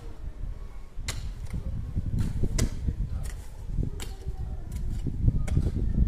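Irregular sharp knocks of construction work, roughly one every half second to a second, over a steady low rumble.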